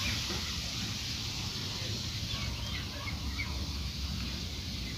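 Outdoor ambience: a few faint, short bird chirps, mostly around the middle, over a steady hiss and a low rumble.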